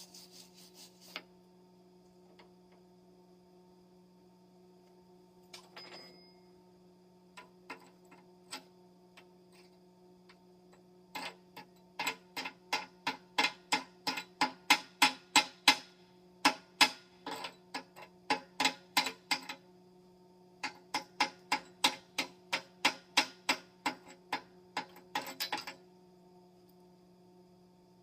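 Runs of sharp taps, about two to three a second, over a steady low hum. The taps start about a third of the way in, pause briefly just past the middle, then stop shortly before the end.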